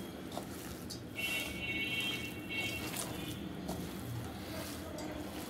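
Soft, wet squishing and small clicks of a hand kneading boiled fish, mashed potato and fried onions together on a ceramic plate. A faint high-pitched tone sounds in the background for about two seconds, starting about a second in.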